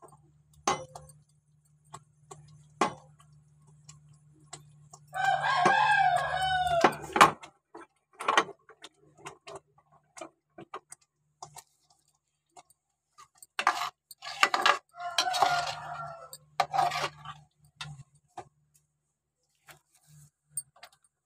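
A rooster crows, one long call about five seconds in and a run of further calls around fourteen seconds in. Between them come light scattered clicks, fitting metal tongs knocking a small steel pan of dry-roasting fenugreek leaves, over a faint low hum.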